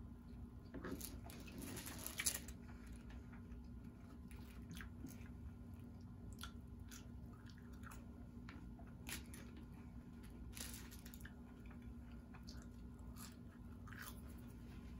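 A person chewing french fries, with scattered soft mouth clicks and smacks and a louder bite a couple of seconds in.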